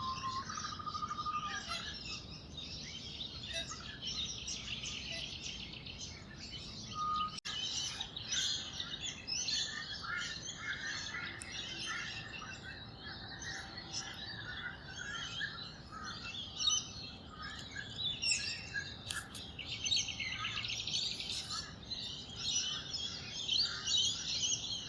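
Several small wetland birds chirping and twittering over one another in a continuous chorus, with a short steady whistle at the start and again about seven seconds in.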